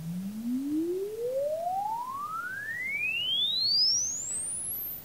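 A sine sweep for a Room EQ Wizard frequency-response measurement, played through a Presonus R65 studio monitor that has been converted to passive, with a 4-ohm wire-wound resistor in series and the back panel on. One pure tone rises smoothly from low bass to the top of hearing over about five seconds, then cuts off.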